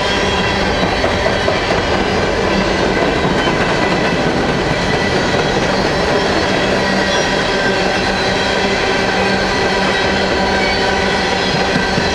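A train of empty coal hopper cars rolling past: steel wheels on rail in a steady, continuous noise, with constant ringing tones running through it.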